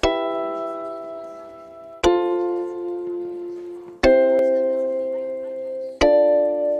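Background music: sustained keyboard chords, a new chord struck about every two seconds and each left to fade.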